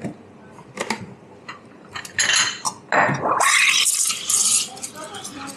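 Espresso-bar work: clinks and knocks of cups and tools, then loud hissing bursts through the middle, broken by a short sound that sweeps down in pitch.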